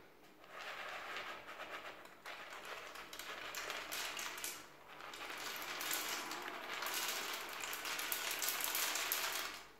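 Popped popcorn sliding out of a bowl and dropping into a toilet bowl, a dry rustle of many small light taps and patters as the pieces hit the ceramic and the water. It pauses briefly about halfway and stops abruptly near the end.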